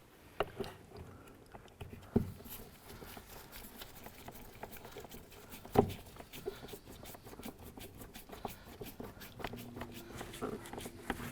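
Phillips screw being driven by hand into the plastic door-panel trim: a quick run of light clicks as the screwdriver turns, with a couple of louder knocks about two and six seconds in.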